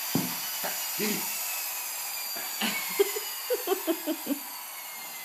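A child giggling in a quick run of short bursts about three seconds in, over a steady background hiss.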